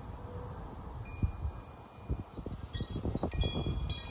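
Metal chimes ringing: several clear high tones of different pitches sounding together and ringing on, most of them starting a little before three seconds in. Irregular low rumbling lies underneath.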